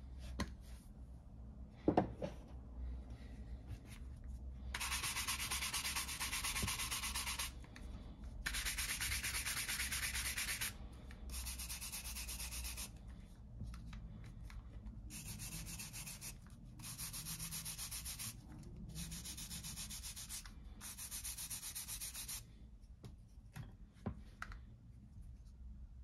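A bristle brush buffing a leather Zippo lighter case in seven bursts of quick back-and-forth strokes, each one to three seconds long. A single sharp knock comes about two seconds in.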